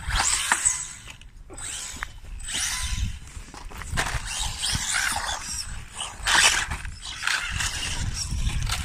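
Small electric RC cars, among them a 1/18-scale XTM Racing Rage, driving in repeated short bursts of throttle, their geared drivetrains rasping and whirring with each spurt.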